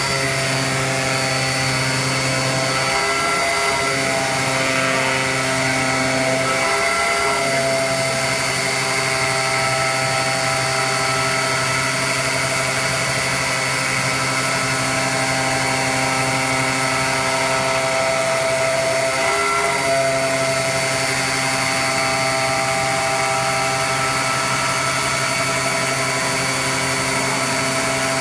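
CNC flatbed digital cutter running, its knife head cutting a cork gasket sheet: a steady mechanical whine of several held tones over a hiss. The tones briefly break and shift a few times as the head changes its path.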